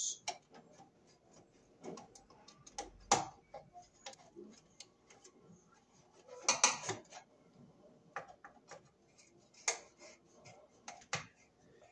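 Screwdriver and wire working at an electrical panel's ground bar: irregular small metallic clicks and scrapes as the ground conductor is seated in the terminal and the lug screw is tightened, loudest about six and a half seconds in.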